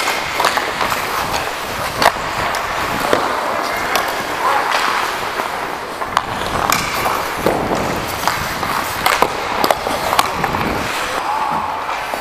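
Ice hockey skates scraping and carving on the ice, heard close up from a player's own camera, with scattered sharp clacks of sticks and puck throughout.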